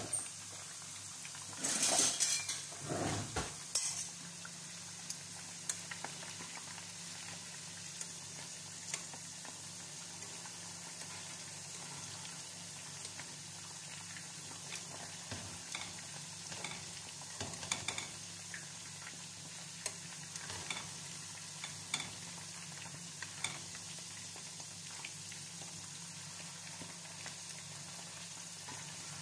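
Potato chunks frying in oil in a pan, a steady sizzle, with scattered clicks and scrapes of a slotted metal spatula turning them. A few louder scrapes and knocks come about two to four seconds in.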